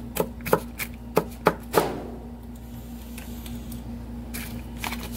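Knife chopping food against a plate, about seven sharp, uneven strikes in the first two seconds, then stopping. A steady low hum runs underneath.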